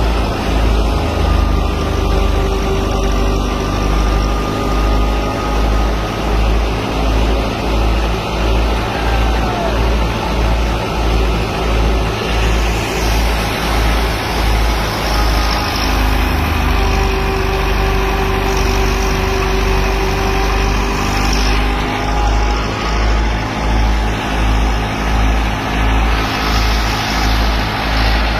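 Tractor engine driving a wheat thresher, running steadily with a low throb that pulses about once a second and a faint whine above it.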